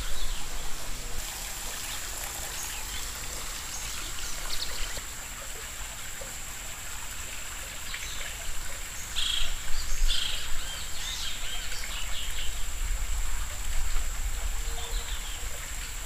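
Tropical forest ambience: birds chirping, most around nine to ten seconds in, over a steady outdoor hiss and a constant thin high tone.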